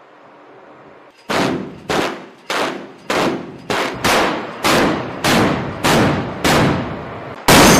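Shipboard heavy gun firing a steady string of single shots, roughly two a second, each with a short ringing echo, starting about a second in; a louder, longer blast comes near the end.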